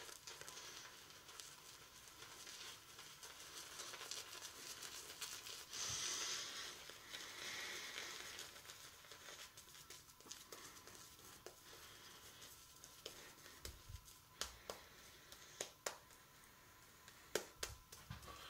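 Shaving brush working warm shaving lather over a bearded face: a faint, continuous wet swishing and crackling of lather and bristles, strongest about six seconds in. A few sharp clicks come in the last few seconds.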